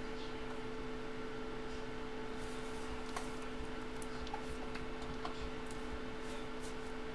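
Steady electrical hum, two even tones held throughout, with a few faint scattered clicks and taps.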